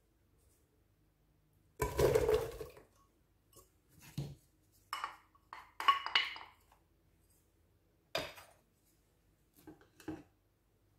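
Chopped onion tipped from a ceramic bowl into an empty aluminium pressure cooker, landing in the pot with a clatter about two seconds in. It is followed by a run of sharp clinks and taps against the pot, and two more knocks near the end.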